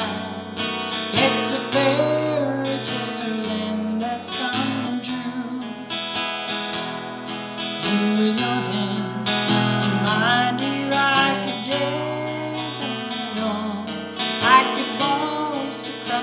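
A woman singing a country waltz while strumming a jumbo acoustic guitar, with alternating bass notes under the chords.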